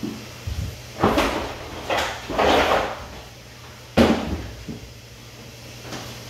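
Several sharp knocks and clatters from things being handled at a coin-operated top-loading washer, the loudest about four seconds in, with rustling between them and a steady low hum underneath.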